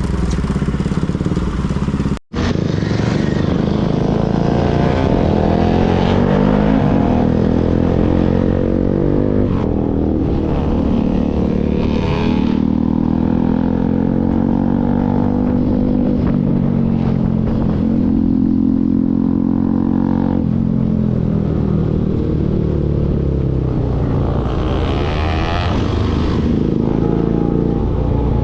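Bajaj Pulsar NS single-cylinder motorcycle with an aftermarket Akrapovic full-system exhaust, ridden with the engine revs rising and falling as it goes through the gears. The sound cuts out for an instant about two seconds in.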